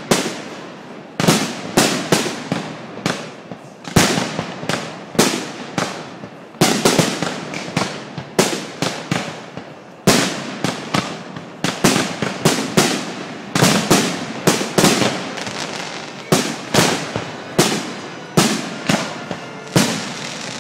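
Aerial fireworks shells bursting close overhead in quick, irregular succession, often several sharp bangs a second, each trailing off before the next.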